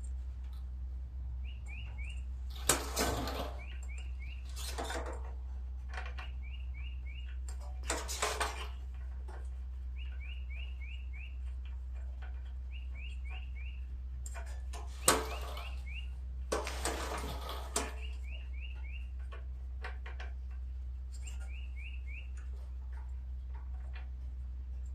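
Intermittent metallic clanks and clatters of hand tools while a spark plug is fitted back into a small Briggs & Stratton engine, the loudest at about 3, 15 and 17 seconds in. Throughout, a bird chirps in short runs of four or five quick notes every couple of seconds over a steady low hum.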